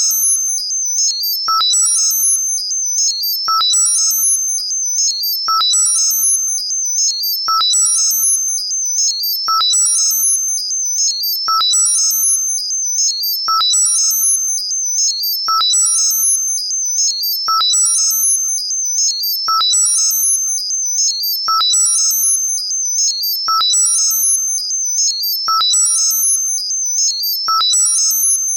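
Synthesized tinnitus-masking sound: a steady, very high-pitched tone under a flurry of high chirping tones, with a short ping lower down. The whole pattern pulses in a regular cycle about every two seconds.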